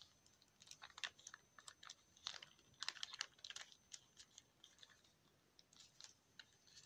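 Faint, irregular clicks and taps of plastic wrestling action figures being handled and knocked together.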